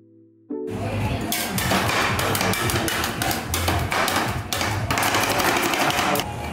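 Two metal spatulas rapidly tapping, chopping and scraping on the frozen steel plate of a rolled ice cream stall, working fruit into the ice cream mix; a fast, uneven clatter of metal-on-metal knocks starts about half a second in.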